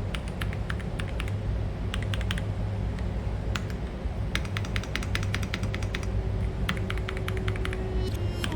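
Typing on an Ajazz AK650 mechanical keyboard: quick runs of key clicks, broken by a couple of short pauses.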